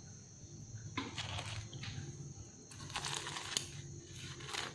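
Scissors cutting through the crisp, flaky crust of a fried bánh gối (Vietnamese fried turnover), giving a series of short, faint crunches and crackles.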